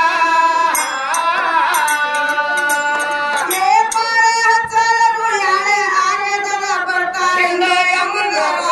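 A woman singing a folk song in long, wavering notes, accompanied by small hand cymbals struck in short, bright clashes.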